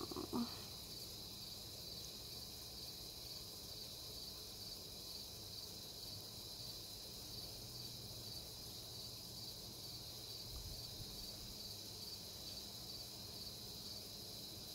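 Crickets trilling in a steady, high-pitched chorus with an even pulse.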